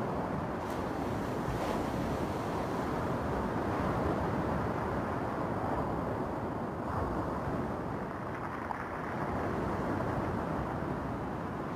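Small sea waves breaking and washing over a cobble beach, a steady surf that rises and falls gently.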